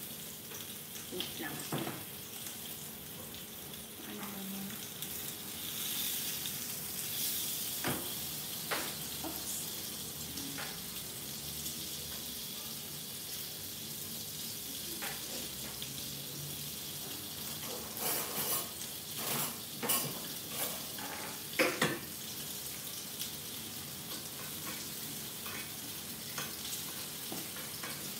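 Salmon steak frying in oil in a cast-iron skillet: a steady sizzle with scattered crackles, and a run of louder clicks and crackles about two-thirds of the way through.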